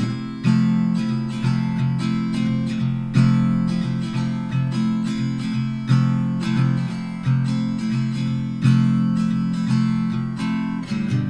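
Background music: an acoustic guitar strumming chords that ring and decay between strokes.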